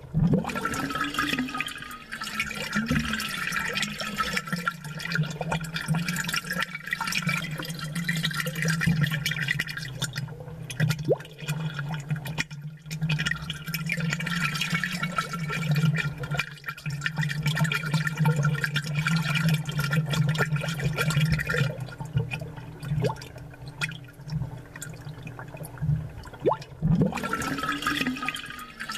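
Amplified aquarium water bubbling and gurgling continuously from an air-bubble ornament, with a steady low hum underneath.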